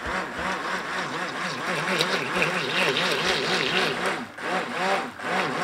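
Electric hand blender beating a bowl of raw eggs. The motor's pitch wavers up and down over and over as the blade is worked through the mix.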